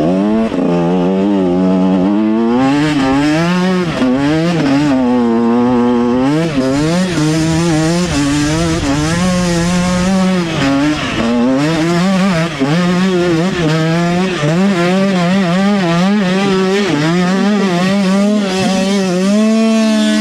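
Off-road motorcycle engine running loud, revving up and down over and over as the throttle is worked, its pitch rising and falling every second or two.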